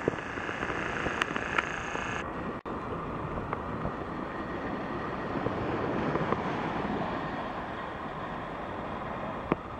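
Wind buffeting the microphone: a steady, rough rushing noise, briefly dropping out about two and a half seconds in.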